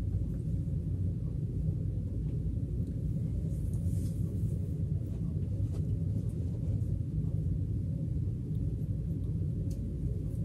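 A steady low rumble, with a few faint brief rustles or ticks over it.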